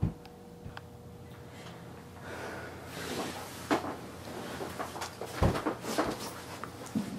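A sliding door shutting with a thud, then knocks, rustling and movement in a small room, with a heavy thump about five and a half seconds in.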